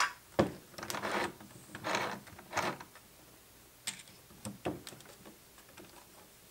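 Irregular clicks and knocks of hands handling a small plastic mini sewing machine and its fabric, with a few short rustles, while the machine is stopped where its stitching knotted up. The clicks thin out to a few isolated ones after about three seconds.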